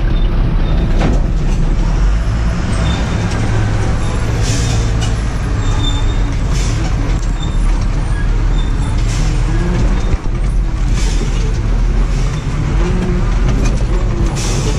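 Tata tipper truck's diesel engine running steadily under load, heard inside the cab as it drives a rough dirt track. Brief high-pitched bursts of noise come every two seconds or so over the deep rumble.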